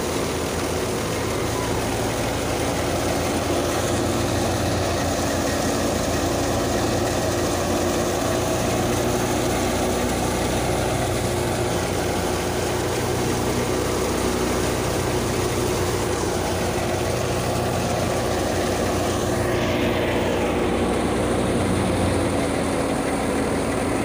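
Tractor-driven wheat thresher running steadily, powered by the tractor's diesel engine at a constant speed, with its drum and fan blowing out chopped straw.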